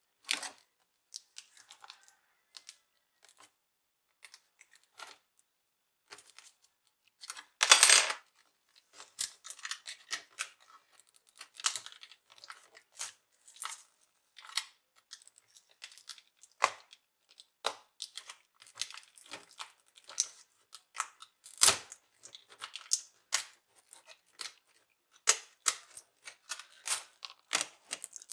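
Irregular small clicks, cracks and scraping from a laptop display panel being pried away from a back cover stuck on with epoxy glue, with one louder burst lasting about a second, about eight seconds in.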